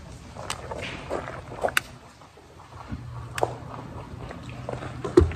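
Light clicks and knocks of wooden cooking chopsticks against a pan and a camp table, scattered a second or so apart, with a heavier knock near the end. A low hum runs underneath for about two seconds in the middle.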